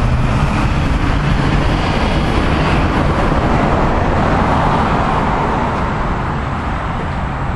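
Steady outdoor road-traffic noise, an even rush with a low engine hum beneath it, swelling slightly about halfway through as a vehicle passes.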